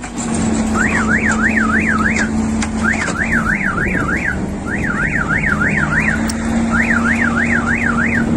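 Electronic warning alarm warbling in repeated bursts of four or five quick up-and-down sweeps, a burst about every two seconds, over a steady low hum and machinery noise.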